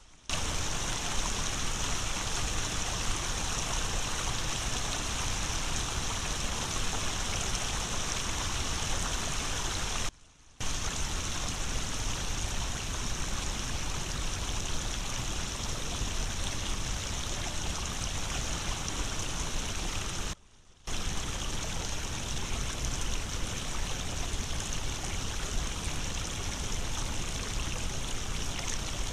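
Water rushing and splashing through a breach torn in a beaver dam, a steady stream-like flow that drops out briefly twice.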